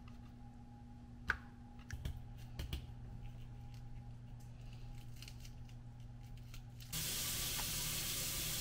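Light clicks and knocks of a knife and mango slices being handled on a plastic cutting board, over a steady low hum. About seven seconds in, a steady hiss starts and runs for about two seconds, louder than the clicks.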